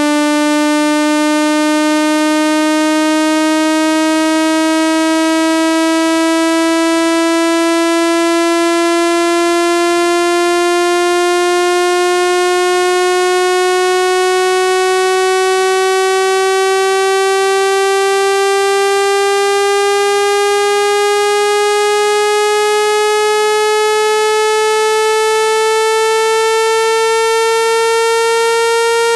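Synthetic speaker-cleaning tone, meant to shake water out of a phone speaker: a single buzzy electronic note, rich in overtones, held at steady loudness while it glides slowly upward in pitch.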